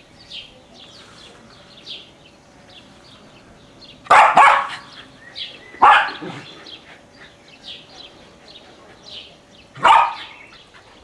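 A dog barking three times, single loud barks about four, six and ten seconds in, with birds chirping faintly throughout.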